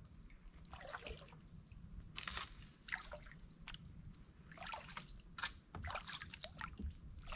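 Kayak paddle strokes in shallow water, with water dripping and trickling off the blades in short, irregular splashes, a few each second.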